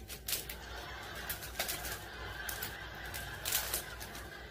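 Plastic and paper food wrappers crinkling and rustling in short, irregular bursts as a packet is pulled open and handled.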